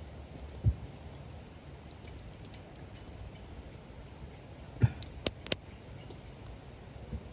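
Wood campfire burning with a low steady rumble, a dull knock under a second in, and three sharp crackling pops close together about five seconds in. A run of faint, high, evenly spaced chirps sounds in the middle.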